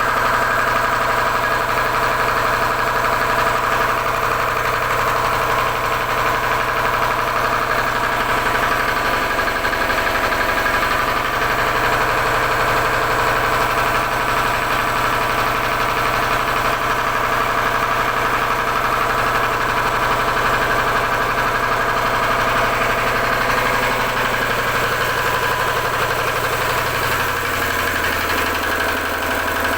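Generator engine running steadily; its lowest tones drop and it gets slightly quieter in the last few seconds.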